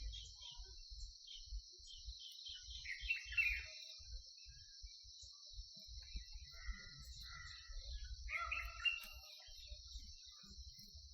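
Outdoor nature ambience: birds chirping in short bursts, busiest about three seconds in and again near nine seconds, over a steady high drone of insects, with a low rumble of wind on the microphone coming and going.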